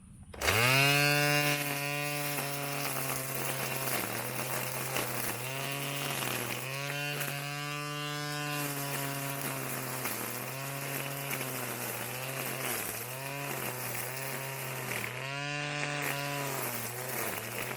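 Petrol brush cutter engine comes on suddenly about half a second in, quickly rising in pitch, then runs at high speed, its pitch dipping briefly and recovering over and over.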